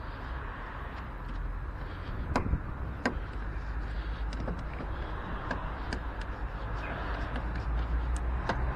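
Light clicks and knocks of hand tools and metal parts as the windscreen wiper mechanism is bolted back in place, two sharper clicks about two and three seconds in and fainter ticks after, over a steady low background rumble.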